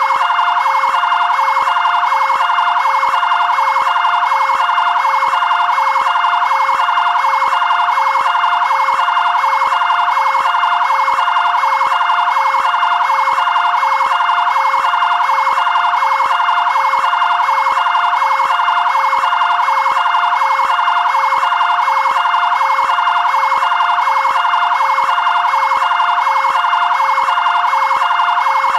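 Two-tone siren of a fire brigade area command vehicle, alternating quickly and evenly between a high and a low pitch without a break.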